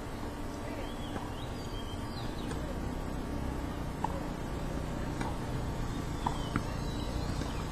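Steady low outdoor rumble with birds chirping faintly, and a few sharp knocks of a tennis ball on racket strings or the hard court, about four seconds in and twice more near six seconds.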